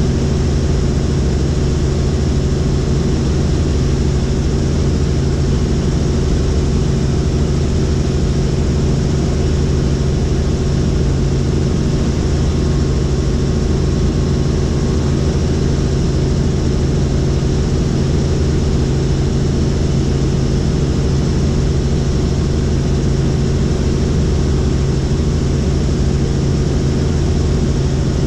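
Helicopter in steady flight heard from inside the cabin: a constant low drone of rotor and engine over a rushing hiss, unchanging in pitch and level.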